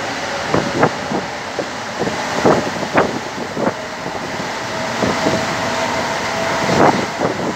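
Metro train running inside the passenger car as it pulls out of a station into the tunnel. Over a steady rumble come irregular clunks and rattles, and a steady motor whine runs through the middle of the stretch.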